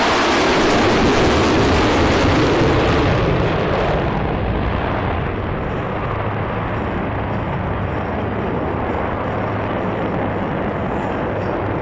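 Jet noise from the Blue Angels' diamond of four F/A-18 Super Hornets flying past. It is loud and full of hiss for the first four seconds, then drops to a duller, steadier rumble as the formation draws away.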